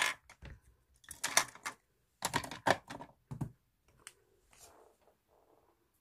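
Small hard plastic makeup cases and compacts being handled, clicking and clattering in quick clusters of sharp taps for the first three seconds or so, then fainter handling noise.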